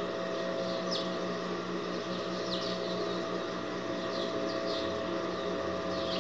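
Steady electrical hum, with a few short, high, falling bird chirps scattered through it.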